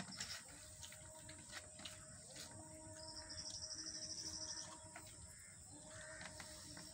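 A rapid, high-pitched pulsed trill from a bird or insect lasting about a second and a half near the middle, over soft scattered clicks of rice being mixed and eaten by hand from a steel plate.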